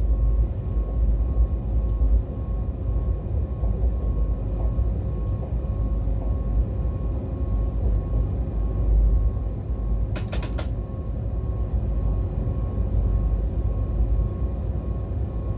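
Siemens Vectron electric locomotive running along the track, heard from the driver's cab: a steady low rumble of wheels and running gear with a faint steady whine. A quick cluster of sharp clicks comes about ten seconds in.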